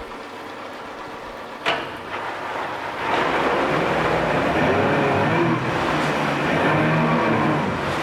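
2001 Mercury 75 hp four-cylinder carbureted four-stroke outboard running, quietly at first, with a single clunk a little under two seconds in. From about three seconds in it is revved up part way, its engine speed rising and falling.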